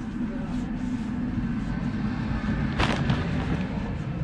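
City street ambience: a steady low rumble of road traffic, with one short sharp noise about three seconds in.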